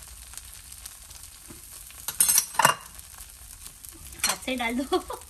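Tortilla with melting mozzarella sizzling faintly in an oiled frying pan, with a few sharp utensil clatters against the pan about two seconds in.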